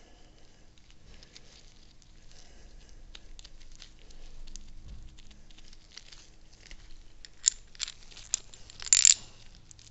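Hand-handling noise from small parts of an outdrive tilt assembly being fitted: faint rustling and scattered light clicks, then a few sharper clicks and a brief louder clatter near the end.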